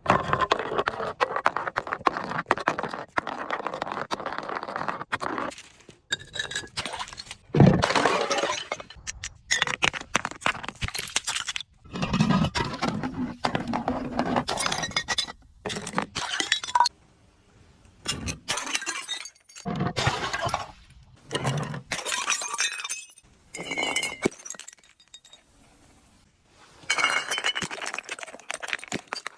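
Glass bottles being crushed and shattering, crunching and clinking of breaking glass in about ten bouts of a second or a few seconds each, with short pauses between; the loudest crack comes about eight seconds in.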